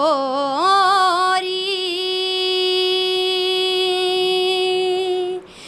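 A young woman sings a Haryanvi folk song unaccompanied. She slides through quick ornamented turns on the word 'chhori', then holds one long steady note for about three and a half seconds and breaks off near the end.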